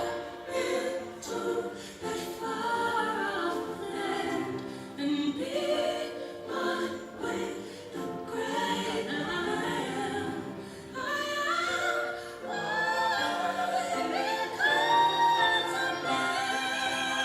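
Choral singing over background music, several voices holding and gliding between sustained notes.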